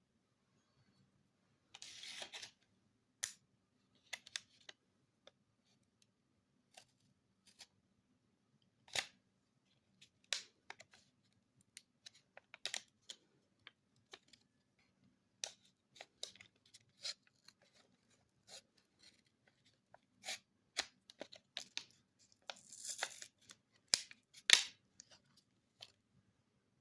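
Irregular clicks and short scraping sounds of small objects being handled, with a longer tearing or scraping sound about two seconds in and another cluster near the end, where the loudest click falls.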